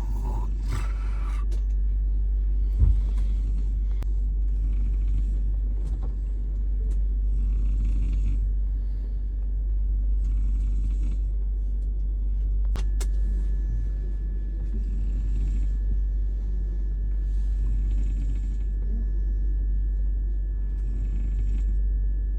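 Steady low rumble of a moving train heard from inside a sleeper coach, with a soft hiss coming back every two seconds or so and a few light clicks.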